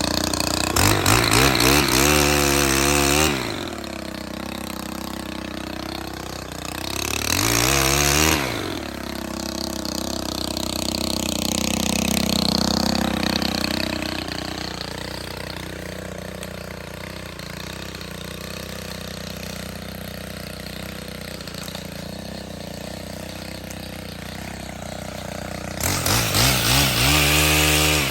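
Stihl HT 131 pole saw's small petrol engine revved up hard in short bursts, three times (near the start, about eight seconds in, and near the end), dropping back to a lower, steadier idle in between.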